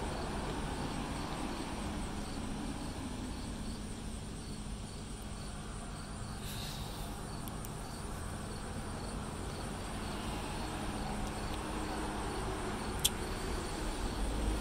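Steady background noise with a faint high chirp repeating at an even pace, and one sharp click near the end.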